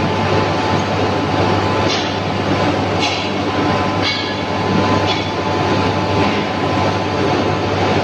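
Steady loud din of an induction-furnace melt shop: a constant low hum under dense rushing noise, with a few short, higher scraping bursts about two to five seconds in.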